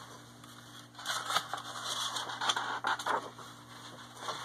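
Paper pages of a picture book rustling and scraping as they are flipped by hand, mostly from about a second in.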